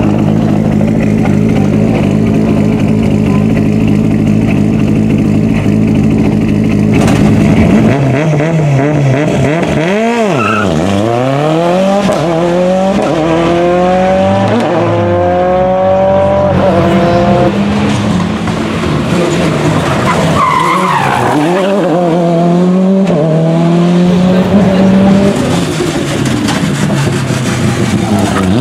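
1998 Toyota Corolla WRC's turbocharged 2.0-litre four-cylinder engine. For about eight seconds it holds a steady note; then the car is driven hard on a rally stage, its revs climbing and dropping sharply through the gear changes.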